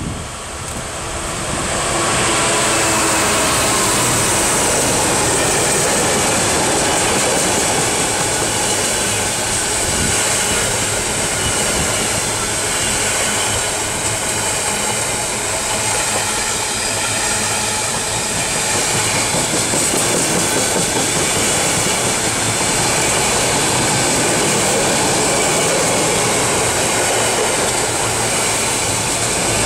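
A Class 66 diesel freight locomotive, with its two-stroke V12 engine, draws near and passes in the first couple of seconds. A long rake of empty coal hopper wagons then runs by close at hand, a loud steady rush of wheels on rail with constant clacking.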